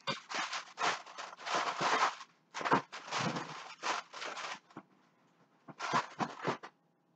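Handling noise: a quick, irregular run of rustles and scrapes as objects are moved about close to the microphone, pausing about four and a half seconds in before a last short flurry.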